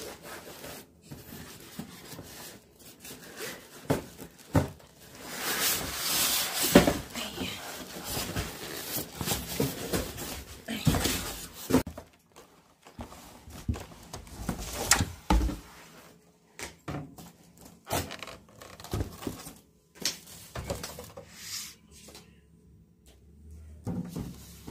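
Plastic wrapping and cardboard packaging rustling and crinkling, with clicks, knocks and scrapes as foam packing and a mini oven's plastic-wrapped baking tray are handled in a cardboard box. The rustling is heaviest in the middle and gives way to scattered handling knocks.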